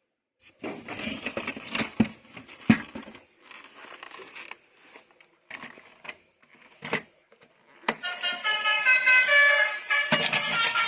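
Handling noises of a toy being unpacked: rustling and knocks, with two sharp knocks about 2 and 3 seconds in. About 8 seconds in, a battery toy vehicle's electronic sound module switches on and plays a high, beeping tune of changing notes.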